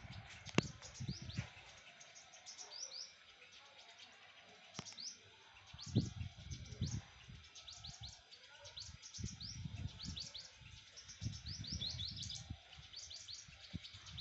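Small birds chirping: quick runs of short, high, downward-sliding chirps, with a few low thumps and rumbles in between.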